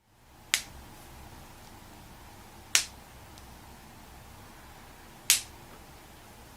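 A person's joints cracking: three single sharp pops, a couple of seconds apart.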